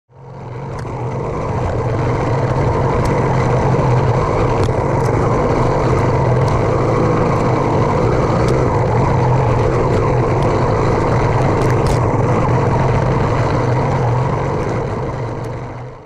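YD100 two-stroke bicycle engine kit running steadily on a motorized trail bike while under way, with scattered sharp ticks. It fades in over the first two seconds and fades out near the end.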